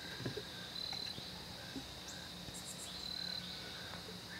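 Faint insect chirping: a high, steady trill that comes in short spells of about half a second, roughly every two seconds.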